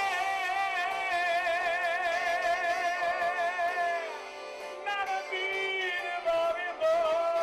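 Music from the song's closing bars: a melody of long held notes with strong vibrato over the accompaniment.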